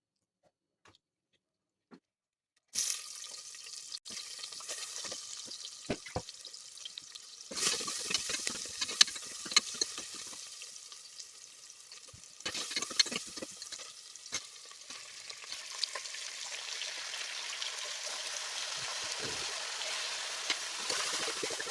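Food sizzling in hot oil in a pan, starting suddenly about three seconds in, with the spoon scraping and clicking against the pan as it is stirred. The sizzle swells louder twice, as if more food or stirring stirs up the oil.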